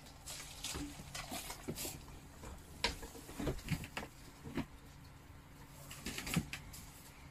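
Hot soup pouring from a steel wok into a stainless steel basin, with scattered short metallic clinks as the pan and utensils knock together.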